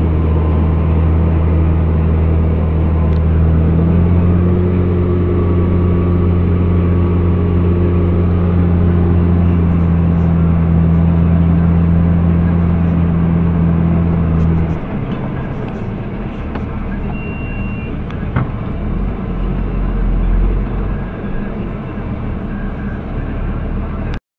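JCB Fastrac 3230 Xtra tractor engine heard from inside the cab, running loud and steady as it drives, its pitch rising a little about four seconds in. About fifteen seconds in the engine note drops sharply and it runs on lower and quieter.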